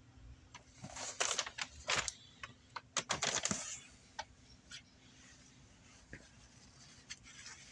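Rustling and sharp clicks from handling, bunched between about one and four seconds in, then a few faint clicks.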